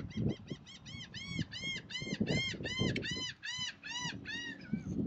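A bird calling in a quick, even series of arched, honking notes, about four a second, trailing off into a few lower notes about four and a half seconds in, with low rumbling bumps underneath.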